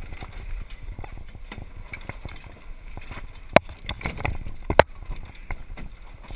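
Water sloshing and wind noise around a small sailing dinghy under way, with two sharp knocks a little over a second apart near the middle.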